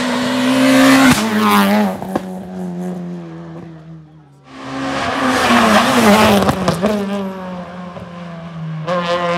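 Rally car engines at high revs, pitch stepping through gear changes, with a few sharp cracks. The sound falls away about four seconds in, rises sharply again with a hissing tyre-and-engine noise, then surges once more near the end.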